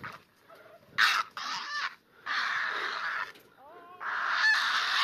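Grey heron giving a series of harsh, raucous squawks, two short and then two long ones, as indignant protest calls while it is chased and caught.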